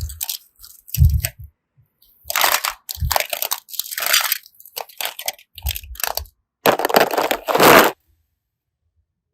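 Crunching and crackling as crisp material is crushed, in irregular bursts of varying length, with a few dull low thuds; it cuts off suddenly near the end.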